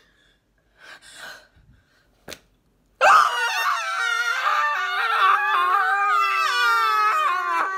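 Two women screaming together in mock horror, a loud, long, held scream that breaks out suddenly about three seconds in after a few faint rustles and a click.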